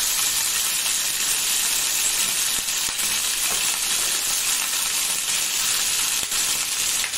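Halved sea crabs frying in a pan, a steady sizzle with faint scattered crackles.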